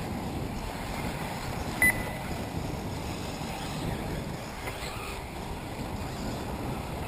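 Steady wind noise on the microphone over an open outdoor track, with one short, high electronic beep about two seconds in.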